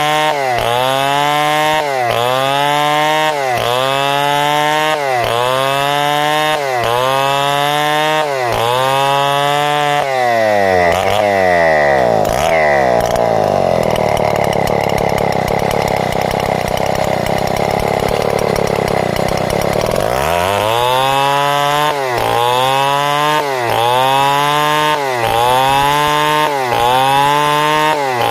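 Chainsaw cutting lengthwise through a log to saw planks. The engine speed dips and recovers about once a second as the bar is worked into the cut. Midway it drags down to a lower pitch for several seconds under heavier load, then climbs back into the same rhythm.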